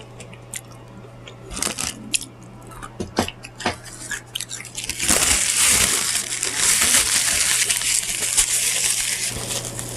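Close-up eating sounds of crispy fried chicken: a few sharp smacks and clicks, then about halfway through a loud, continuous crackling crunch that eases off shortly before the end.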